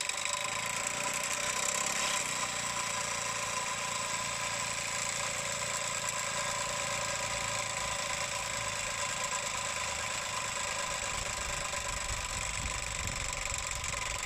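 Small hobby steam engine running steadily at speed, spinning a small DC motor that is used as a generator.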